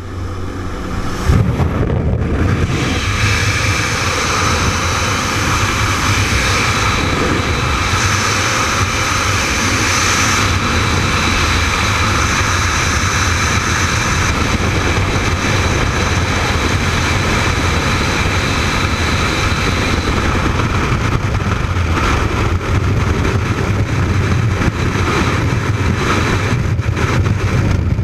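Freefall wind rushing over a helmet-mounted camera's microphone, building over the first second or two as the skydiver leaves the plane, then a loud, steady rush.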